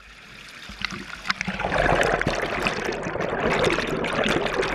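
Water trickling and splashing in a fish hatchery raceway, fading in over the first two seconds, with many small splashes and drips throughout.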